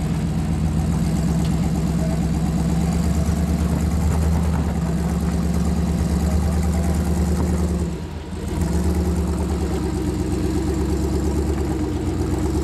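Engine of a Jeep-style rock crawler running steadily at low speed as it crawls up a rock ledge under load, easing off briefly about eight seconds in and then pulling again.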